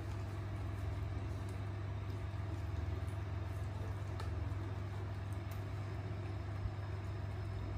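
A steady low hum with no change in pitch or level, and a few faint clicks.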